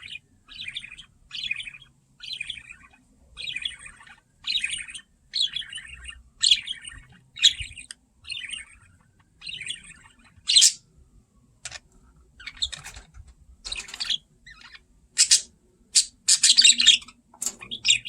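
Budgerigar chirping in short bursts about once a second, growing louder and sharper in the second half.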